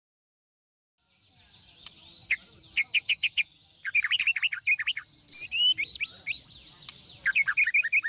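Parrots chirping and calling in quick runs of short, high calls, many rising in pitch; the calls begin about a second in, after a moment of silence.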